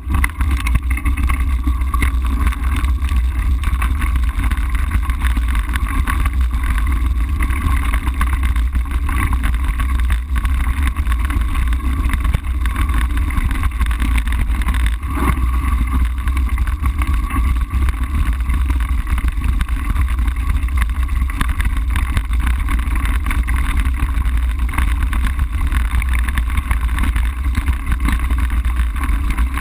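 Steady deep rumble and buffeting from a bicycle-mounted camera riding a gravel road: tyres rolling over loose stones and wind on the microphone.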